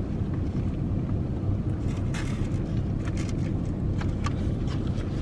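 Steady low hum of a car heard inside its cabin, with a few faint clicks and crackles of tacos being bitten and eaten from foam takeout boxes.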